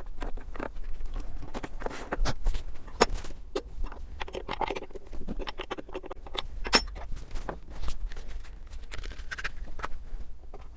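Irregular sharp metal clicks, clinks and knocks of tools and parts being handled while a new cutter is fitted into a router table's router. No motor is running.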